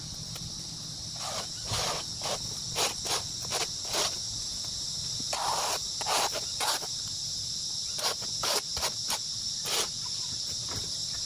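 A rake scraping grass clippings across a concrete footpath in a dozen or so short, irregular strokes, over a steady high chorus of insects.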